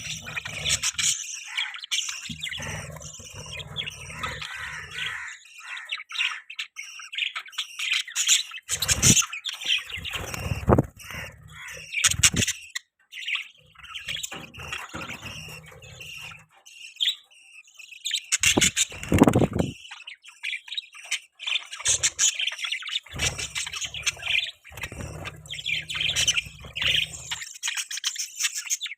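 Budgerigars chirping nonstop, many quick, high calls running into one another, with a few louder calls now and then.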